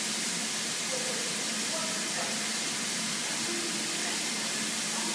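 Steam locomotive 60163 Tornado, a Peppercorn A1 Pacific, giving off a steady hiss of steam with no exhaust beat, with faint voices mixed in.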